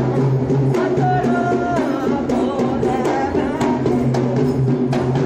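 Music with drums keeping a steady beat, a held low note under it and a melody line on top.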